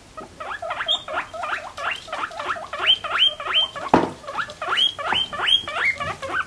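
Guinea pigs wheeking, a rapid run of loud whistling squeals at about three a second, each sweeping steeply up to a high held note. These wheeks are unusually distinctive-sounding for guinea pigs. A single knock sounds about four seconds in.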